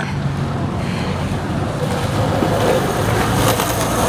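Skateboard wheels rolling over concrete in a skatepark bowl: a steady rumble.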